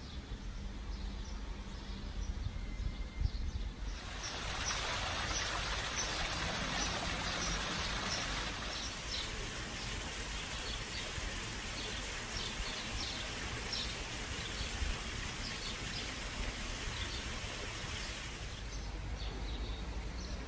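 Steady rushing water noise that sets in abruptly about four seconds in and fades near the end, with many small birds chirping high over it.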